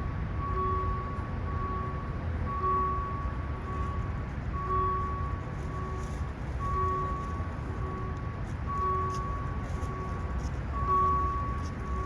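Electronic warning beeper on a Saudi Arabia Railways passenger train, sounding a repeating pattern of a longer beep then a shorter beep about every two seconds, over a steady low rumble.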